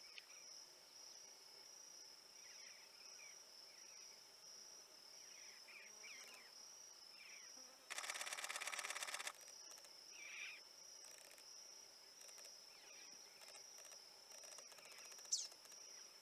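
Faint, steady, high-pitched insect chirping in a pulsing rhythm, with scattered faint bird chirps. About eight seconds in, a loud, very rapid rattle-like buzz lasts about a second and a half.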